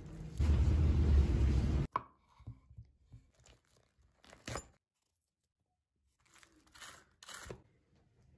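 A loud, deep rushing noise for about two seconds, cutting off abruptly. It is followed by quiet, crisp crunches of a knife cutting into a whole head of cabbage on a wooden board, in two short groups.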